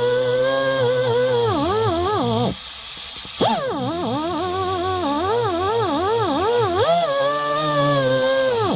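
Air-powered die grinder spinning a Scotch-Brite-wrapped arbor inside a chainsaw cylinder port, a high whine with air hiss whose pitch wavers up and down as it is pressed into the work. It slows almost to a stop about two and a half seconds in, spins back up a second later, and winds down again near the end.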